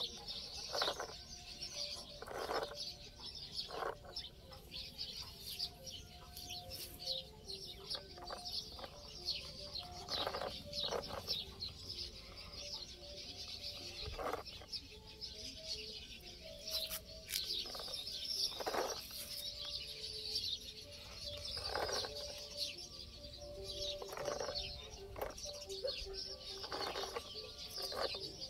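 Birds calling over a steady high hiss, with scattered short scratches and clicks throughout.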